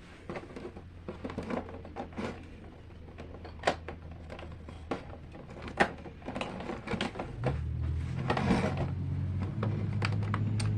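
Irregular clicks, taps and rustles of a slime kit's plastic and cardboard packaging being handled and unpacked, with a low steady hum coming in about three-quarters of the way through.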